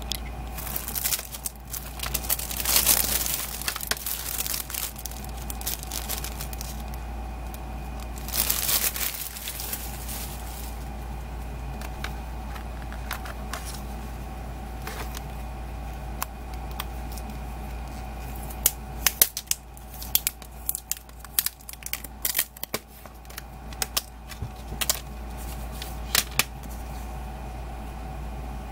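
Cellophane shrink-wrap on a plastic CD jewel case being torn and crinkled off by hand, in two longer rustling spells within the first ten seconds, followed later by a run of sharp clicks and taps as the jewel case is handled, opened and its insert pulled out. A steady low hum lies under it all.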